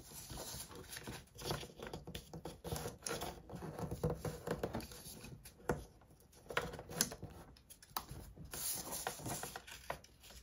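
Paper being accordion-folded by hand along score lines: irregular rustling and crinkling, with a few sharp clicks as the folds are creased.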